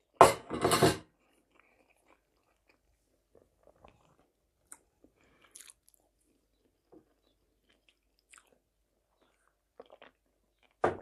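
Close-miked eating sounds: soft, sparse chewing and mouth noises. A brief loud voice-like sound comes in the first second, and a short louder sound near the end.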